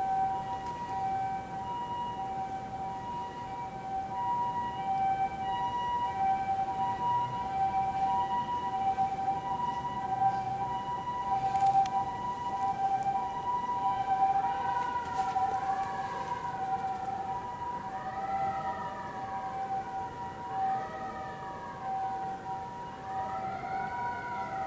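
Emergency-vehicle sirens: a two-tone hi-lo siren alternates steadily throughout. About two-thirds of the way in it is joined by a wailing siren that rises and falls every two to three seconds.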